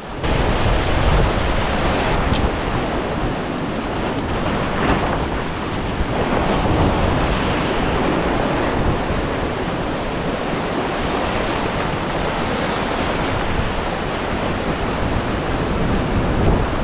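Ocean surf surging and breaking against a rocky shoreline close by, in a steady wash that swells and eases, with wind buffeting the microphone.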